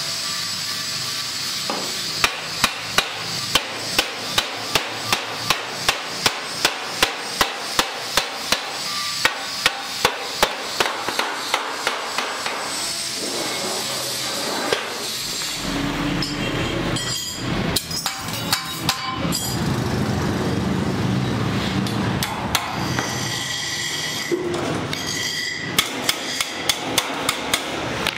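Wooden mallet beating the edge of a galvanized steel sheet over a steel rail to fold a flange: quick, even knocks, about two to three a second, with a metallic ring. About halfway through the knocking stops for some ten seconds, leaving a low rumble and a few scattered knocks, then picks up again near the end.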